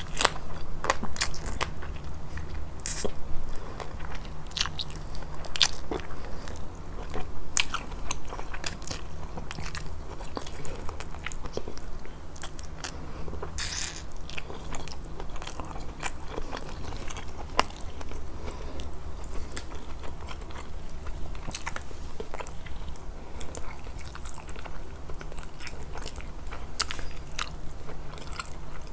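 Close-miked eating of a grilled fish meal: steady chewing with many sharp crunches and wet mouth clicks, busiest in the first several seconds.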